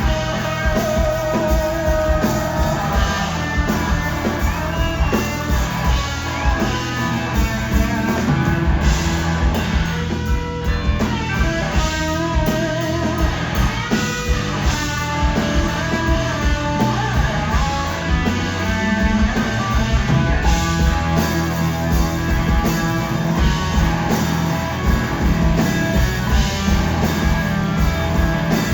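Live blues-rock band playing, an electric lead guitar holding wavering, sustained notes over drums and bass.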